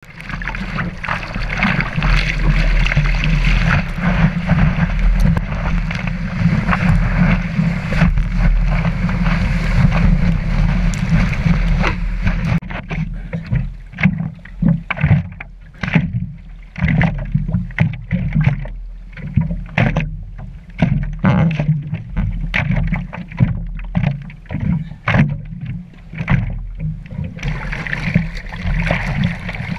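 Seawater splashing and sloshing close against the nose of a surfboard as a surfer paddles with alternating arm strokes. A continuous rush of water for about the first twelve seconds gives way to separate splashes roughly once a second, and the continuous rush returns near the end.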